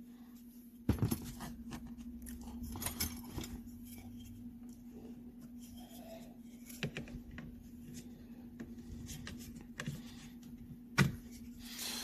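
Blue plastic pry tool working at a Subaru WRX's clipped plastic dashboard trim panel: scattered clicks, taps and scrapes of hard plastic as the cover is worked loose, with a sharper knock about a second in and another near the end.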